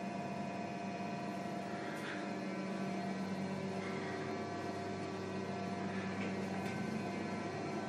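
Steady electrical mains hum from the equipment of a running hydroelectric power station, made of several constant tones, with a few faint footsteps.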